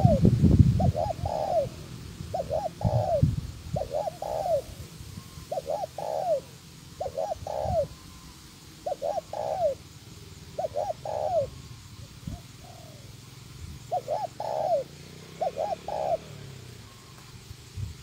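Spotted dove cooing repeatedly, in short phrases of two or three notes about every one and a half seconds. A loud low rumble comes in the first second.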